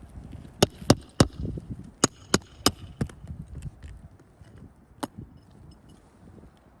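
Sharp knocks of a hand tool striking the roof while a damaged, wind-broken roof piece is worked loose to get at its nails. Three quick knocks about a second in, four more with a slight metallic ring around two to three seconds in, and a single knock about five seconds in.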